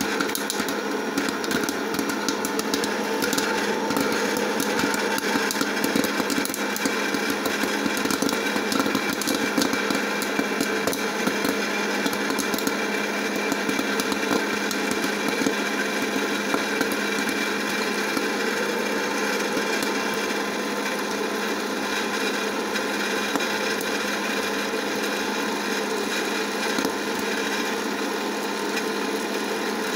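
Hot-air popcorn popper running, its fan and heater making a steady whirring, with frequent sharp pops of kernels bursting that come less often toward the end.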